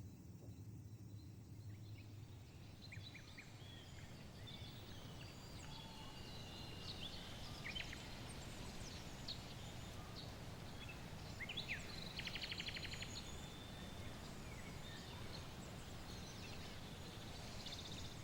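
Outdoor ambience of small birds chirping and twittering, with a quick trill about two thirds of the way through, over a low steady background rumble.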